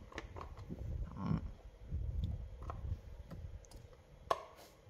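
Parts of a Stihl 026 chainsaw being handled and fitted together during reassembly: scattered light clicks and knocks of the cover pieces, with one sharper click near the end.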